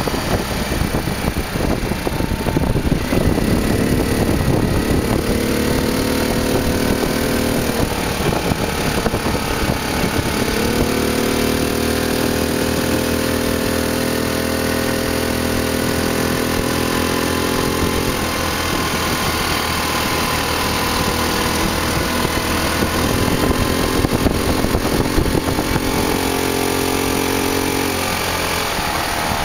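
Open beach buggy's engine running as it is driven, its note rising and falling several times with changes of speed.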